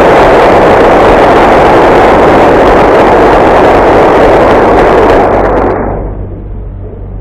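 Crowd applauding, steady and loud, dying away about six seconds in and leaving a low steady hum.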